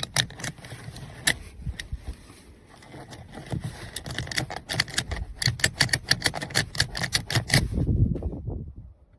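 A run of sharp, irregular clicks and rattles over a low rumble, sparse at first and crowding together in the second half, then stopping about nine seconds in.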